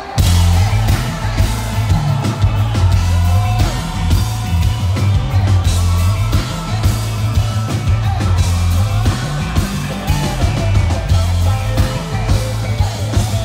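Loud live concert music from a stage sound system: a heavy, steady bass line and drums with a singer's voice over them.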